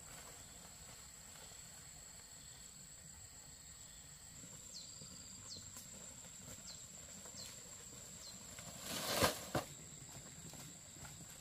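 Steady high-pitched drone of insects in the background. A run of about five short falling chirps comes in the middle, and near the end there is a loud double knock with a rustle.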